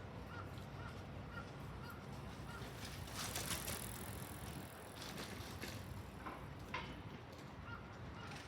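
Faint background hum with a quiet beep repeating about twice a second, which stops about a third of the way in and returns near the end, and a brief hiss in the middle.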